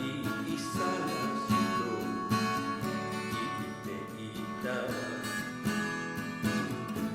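Music of a self-made song, with acoustic guitar prominent.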